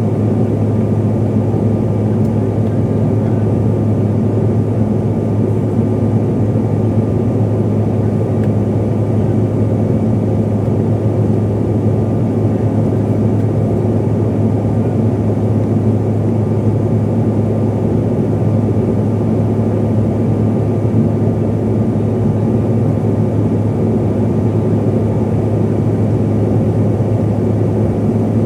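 Steady cabin drone of a Bombardier CRJ-700 from inside the cabin: its rear-mounted General Electric CF34 turbofans and airflow giving a constant low hum with faint high whining tones, holding level throughout.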